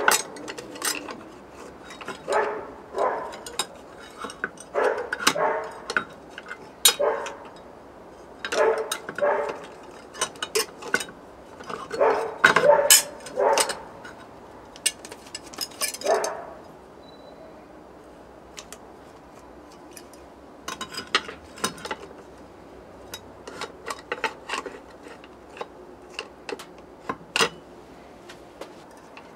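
A dog barking in short bursts over the first half, then scattered sharp metallic clicks and clinks.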